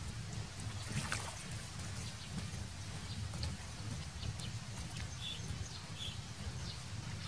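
Light water splashing and sloshing as a dog wades in a shallow pond, over a steady low rumble. Two brief high chirps come after about five and six seconds.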